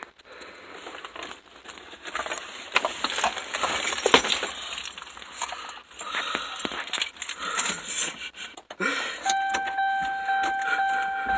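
Small hard objects clicking and clinking as they are handled. From about nine seconds in, a steady high electronic tone comes on and holds.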